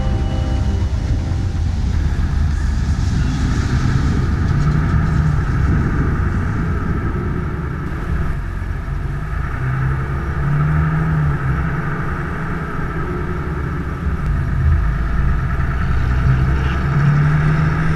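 Land Rover Discovery 5's diesel engine and road noise while driving, with a steady low rumble of wind on a camera mounted on the bonnet; the engine note swells a few times as it accelerates.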